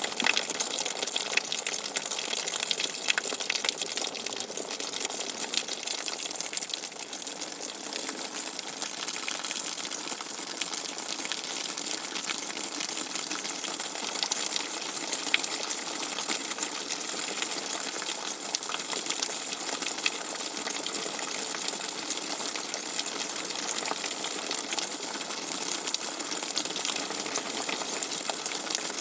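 Rainwater dripping fast and hard: a dense, steady stream of many small drop ticks over a constant watery hiss, with no let-up.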